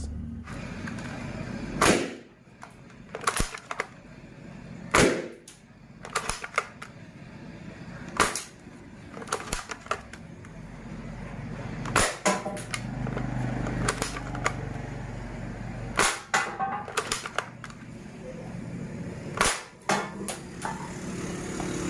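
Toy AK47 blaster being test-fired: a dozen or so sharp shots at an irregular pace, a second or more apart, with quieter clicks and handling noise between them.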